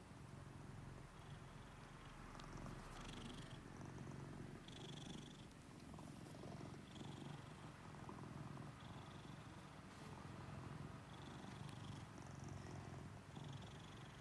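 American Shorthair cat purring quietly and continuously, the purr swelling and fading with each breath every couple of seconds, as it is stroked under the chin.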